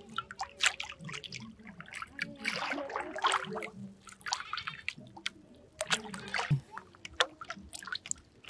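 Plastic bottles splashing into river water, then several more sharp splashes with sloshing and dripping as the water around them settles.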